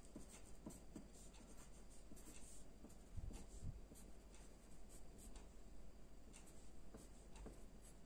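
Faint scratching of a wooden pencil writing on a sheet of paper, in short irregular strokes.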